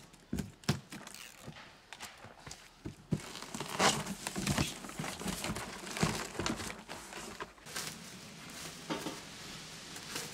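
Large cardboard shipping box being handled and pulled open: crinkling, tearing and scraping of cardboard and packing tape, with a few knocks, busier from about three seconds in.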